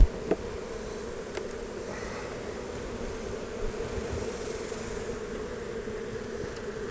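Honey bees from an opened hive buzzing in a steady drone. A single sharp knock comes right at the start.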